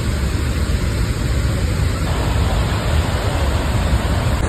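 Waterfall: a steady, loud rush of falling water with a strong low rumble.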